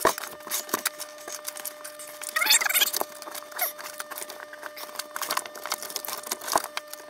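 Hands working a plastic water line and quick-connect fitting against the port of a new RV water pump, giving a stream of small plastic clicks, knocks and scrapes with a brief squeak about two and a half seconds in. The fitting won't seat because the port's shipping plug is still in place. A faint steady hum runs underneath.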